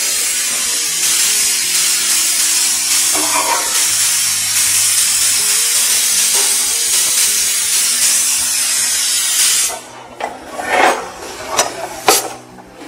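Food sizzling steadily in a hot pan on a gas stove, a loud even hiss that cuts off suddenly about ten seconds in. A few short clinks and knocks of steel utensils follow near the end.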